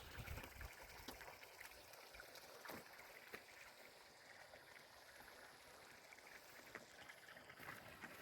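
Near silence: faint background hiss with a few soft clicks.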